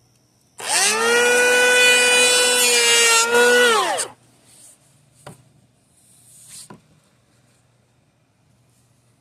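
DeWalt 20V cordless electric planer spinning up to a high steady whine, running for about three and a half seconds and winding down. The pitch dips slightly partway through, as if under load from cutting wood. A couple of light knocks follow.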